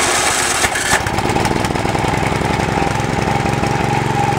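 Small single-cylinder horizontal-shaft engine running just after a cold spring start, on full choke at about half throttle. It runs rough and noisy for about the first second, then settles into a steady run.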